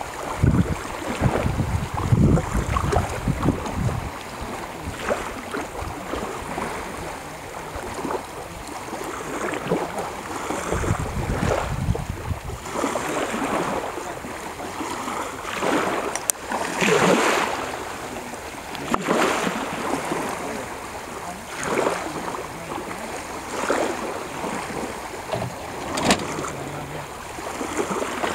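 Shallow water lapping and swishing around a small boat's hull and the legs of people wading, a wash every couple of seconds in the second half. Gusts of wind rumble on the microphone during the first few seconds and again for a moment just before halfway.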